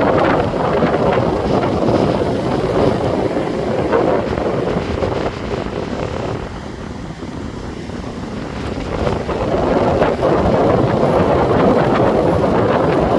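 Strong wind buffeting the microphone over the rush of breaking surf. The noise eases a little about halfway through and then builds again.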